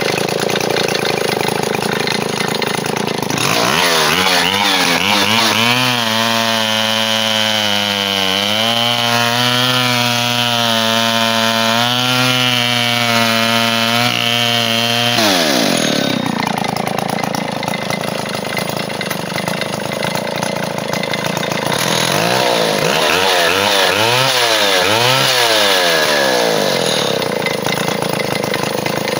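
A vintage Stihl Contra chainsaw's single-cylinder two-stroke engine, test-run during carburettor adjustment. It idles, is revved up a few seconds in and held at high speed for about ten seconds with the pitch wavering, drops sharply back to idle, then is revved up and let down once more near the end.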